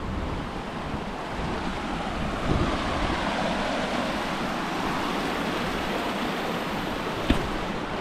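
Shallow river water rushing over rocks through small rapids, a steady rushing that grows a little louder about two seconds in. A single short click comes near the end.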